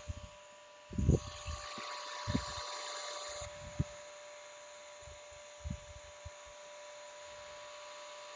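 Bissell CrossWave Pet Pro wet-dry floor cleaner running its self-clean cycle in its tray: a steady motor whine over a hiss, the hiss brighter from about one to three and a half seconds in. Several dull low thumps on top.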